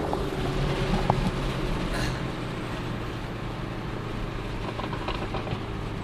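Steady drone of the Shelby GT500's engine and road noise at a cruise, heard inside the car's cabin, with a couple of light knocks in the first two seconds.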